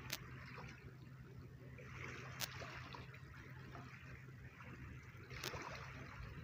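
Faint river water lapping, with a low steady hum underneath and three short sharp clicks spread through it.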